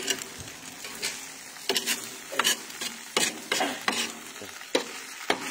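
Metal spatula scraping and tapping on a hot barbecue griddle plate while chicken pieces and vegetables are stirred and turned, with a steady sizzle of the food frying underneath. The scrapes come irregularly, roughly a dozen of them.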